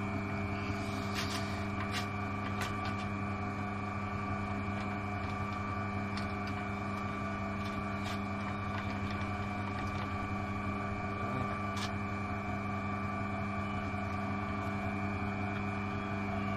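Peugeot Outillage pillar drill's electric motor running steadily without load: an even hum with a fixed high whine, with a few light clicks.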